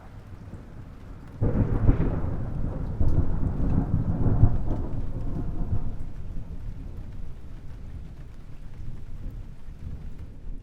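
A peal of thunder: a faint low rumble breaks into a sudden loud crash about a second and a half in, rolls for a few seconds, then dies away slowly.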